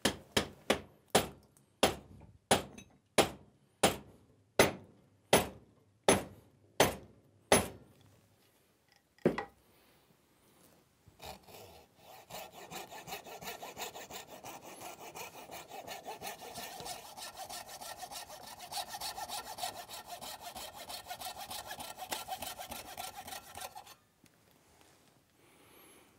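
A wooden wedge being driven into the glued kerf of a green-wood mallet handle: about a dozen sharp strikes, roughly one every 0.7 seconds, then one more a little later. Then a small hand saw cuts the protruding handle end and wedge flush with the mallet head in steady back-and-forth strokes for about twelve seconds, stopping shortly before the end.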